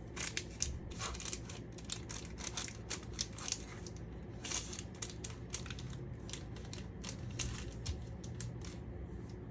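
Dry panko breadcrumbs crackling and crunching as a chilled tuna patty is pressed and turned in them: irregular crisp crackles, several a second, over a steady low hum.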